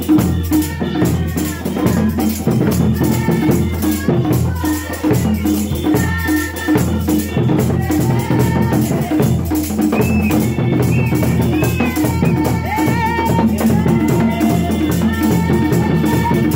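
Church song: voices singing over a continuous shaking of hand-held jingle rattles, with a low steady hum underneath.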